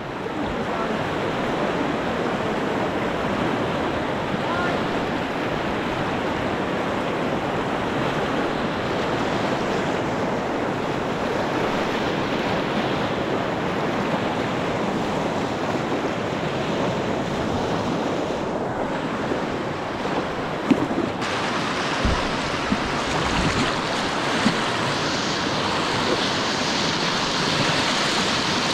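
Steady rush of white-water rapids around a whitewater kayak, with wind buffeting the camera microphone. The hiss of the water grows brighter about two-thirds of the way through, with a sharp knock shortly before.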